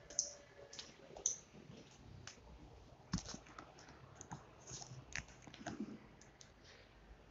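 Faint, irregular clicks and light taps, about a dozen scattered unevenly through the stretch, as from footsteps on a tiled floor and handling of a hand-held recording phone.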